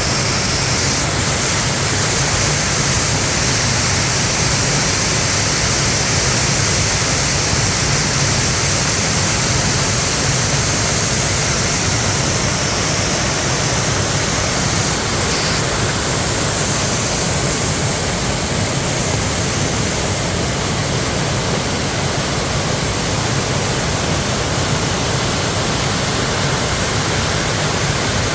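Mountain valley stream rushing steadily and strongly; the water runs full, which the uploader puts down to the rain falling.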